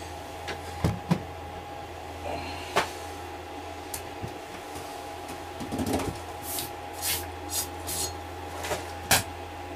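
Scattered clicks and knocks of hands working at a wall-mounted solar inverter and its Unistrut rack, with a cluster of brief rustling scrapes in the middle, over a steady electrical hum.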